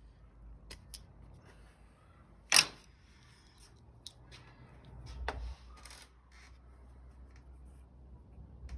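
Scattered sharp clicks and knocks of hand tools and engine parts being handled during work on an ignition coil, the loudest a single click about two and a half seconds in, over a low rumble.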